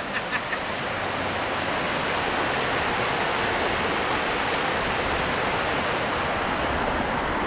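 River rapids: shallow water rushing steadily over rocks.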